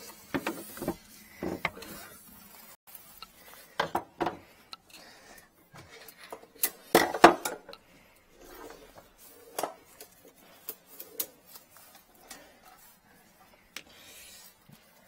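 Scattered clicks, knocks and rustles of tools and a drain inspection camera's cable being handled under a kitchen sink. The loudest clatter comes about seven seconds in.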